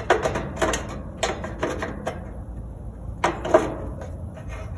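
Clicks and scrapes of wire spade connectors being handled and pushed onto the terminals of a new dual run capacitor in an air conditioner's condenser unit. A string of sharp clicks, the loudest about three and a half seconds in.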